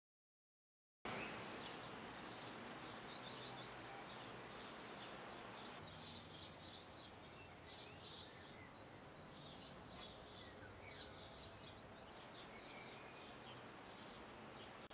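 Faint outdoor ambience starting about a second in: a steady hiss with many short, high chirps from small birds.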